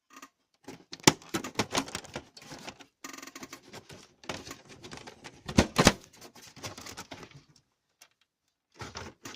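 Plastic casing of a PlayStation 3 slim being pried open and handled: a quick run of clicks, snaps and rattles, the sharpest snaps about a second in and just past halfway.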